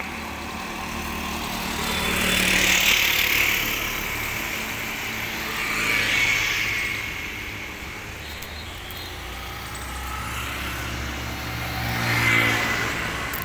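Road traffic: vehicles passing one at a time, each pass swelling and fading, loudest about three seconds in, again near six seconds, and once more near the end as a motor scooter goes by.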